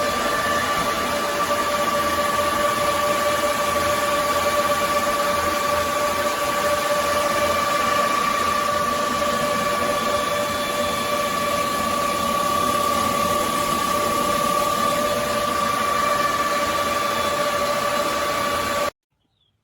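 Wathai 12038 120 mm high-speed PWM case fan running flat out, a steady rush of air with a constant whine on top. It stops abruptly near the end.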